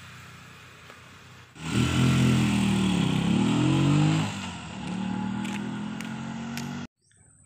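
Small engine of a three-wheeled motorcycle cargo vehicle pulling away, starting loud about a second and a half in with its pitch climbing and dropping as it revs, then running quieter as it moves off; cuts off suddenly near the end.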